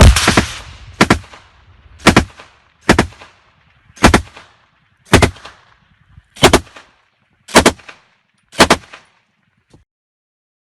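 Gunshots, about nine, fired at roughly one-second intervals, several sounding as two reports in quick succession; the first rings on longest. A faint click follows near the end.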